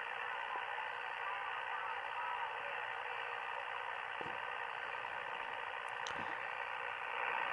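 Amateur radio receiver tuned to the 80-meter band, giving a steady hiss of static and band noise through its speaker, with a very weak station just barely audible under it. The operator blames the poor reception on a bad antenna.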